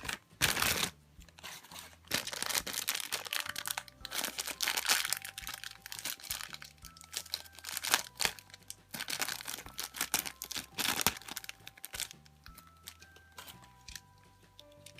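Packaging crinkling and tearing in irregular bursts as a toy is unwrapped, over soft background music.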